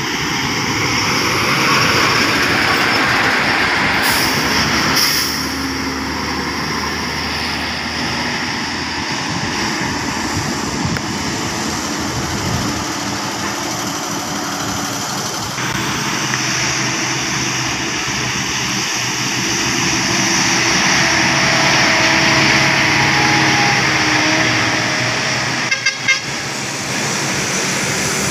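Heavy trucks and buses climbing a winding hill road, their diesel engines working under load with tyre and traffic noise as they pass one after another.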